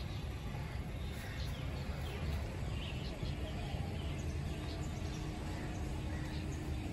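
Outdoor ambience: birds chirping briefly and sporadically over a low, steady rumble. A faint steady hum joins about three seconds in.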